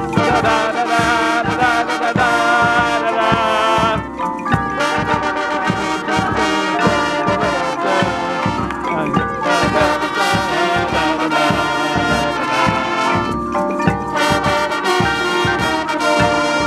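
Drum corps horn line of brass instruments playing a full chorded passage in harmony over a steady rhythmic beat, with marimbas from the front ensemble.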